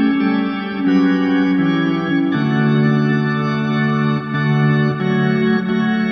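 Background music: a slow chorale of sustained organ-like chords, the chord changing about once every one to two seconds.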